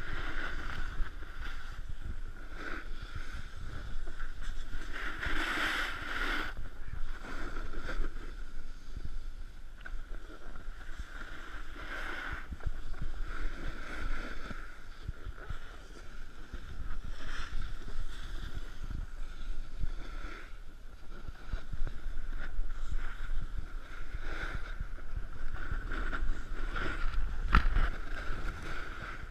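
Snowboard sliding and carving over packed snow, a steady scraping rush that swells and fades, with wind buffeting the microphone.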